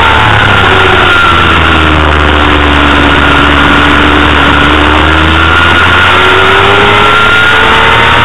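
Honda CBR250RR's high-revving 250 cc inline-four engine heard onboard under heavy wind rush. The revs fall as the rider slows into a corner, hold low through the middle, then climb again on the drive out.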